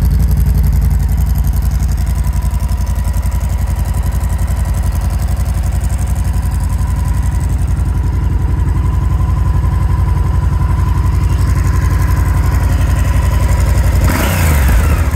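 Honda XL1000V Varadero's 1000 cc V-twin idling steadily through aftermarket Quill exhaust cans, with a brief rise in revs near the end.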